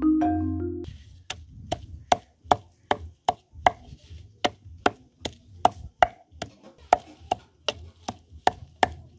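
Wooden pestle pounding garlic cloves with salt in a wooden mortar: a steady beat of thuds, about two and a half strokes a second. Background music plays under the first second and then stops.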